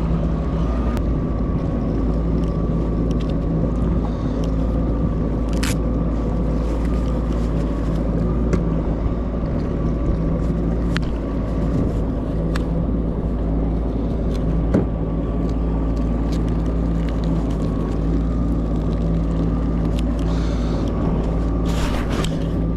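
Jet ski engine running steadily at low speed, an even hum with no revving.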